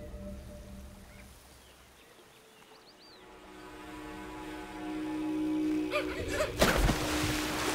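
Faint bird chirps, then background music building with held notes, and about six and a half seconds in a loud rushing splash as capybaras bolt into the river to escape a jaguar's charge.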